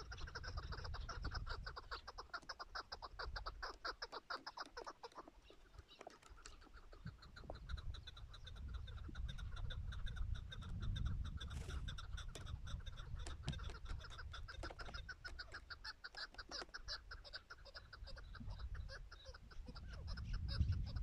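Chukar partridges calling in rapid runs of clucking chuk notes, the species' rallying call, easing off for a few seconds near the middle and then building again. Wind rumbles on the microphone underneath.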